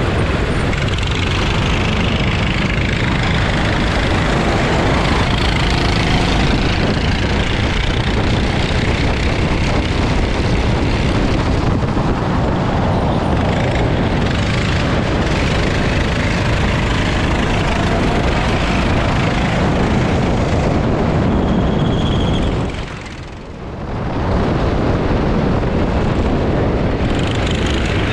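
Go-kart engine running hard under an onboard camera, with wind buffeting the microphone. The sound stays loud and steady, then drops briefly about three-quarters of the way through before picking up again.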